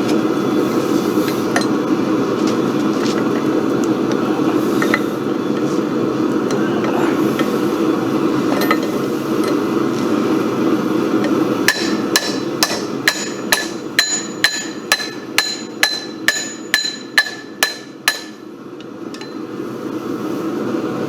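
A steady rushing roar, with a hammer striking steel bar stock over it in the second half: about fifteen ringing metallic blows, roughly two or three a second. The roar fades out soon after the blows stop.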